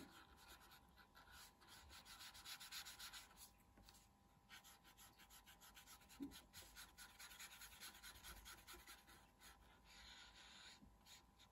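Faint rubbing of a watercolour paintbrush stroked back and forth on paper, in uneven strokes, over a faint steady tone.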